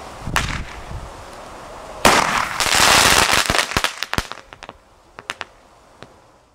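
Fireworks going off: a sharp pop, then about two seconds in a sudden loud burst of dense crackling. It breaks into a quick string of separate sharp pops and thins to a few scattered pops near the end.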